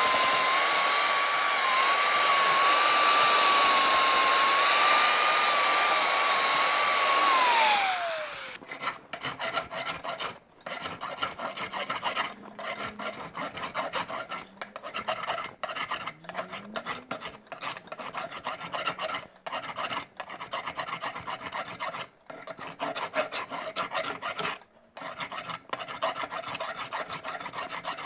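A hand grinder grinds metal on a worn bushing housing clamped in a vise, then is switched off about eight seconds in, its pitch falling as it winds down. After that, a flat hand file rasps over the metal in quick repeated strokes with short pauses, shaping the part to fit.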